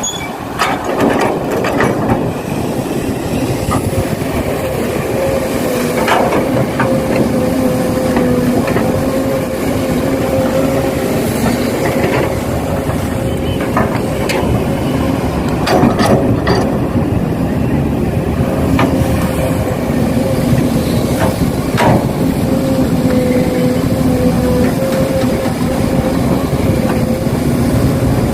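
Small electric motors and plastic gearboxes of RC model construction machines whirring steadily with a wavering whine, with scattered clicks and knocks from the machines working.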